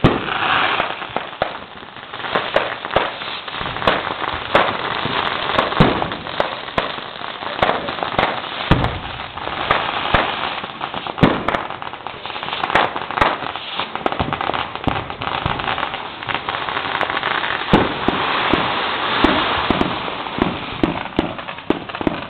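Fireworks and firecrackers going off all around: a dense, irregular run of sharp pops and bangs, with stretches of hissing noise between them.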